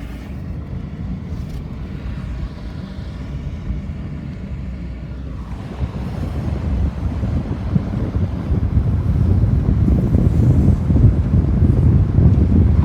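Low rumble of road traffic with wind buffeting the microphone, getting louder after about six seconds.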